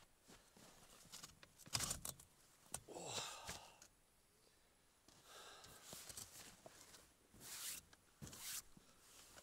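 Faint, irregular rustles and scuffs of a padded winter suit and boots in snow as a man sits down on a folding camp bed. There are a few short swishes, the loudest about two seconds in.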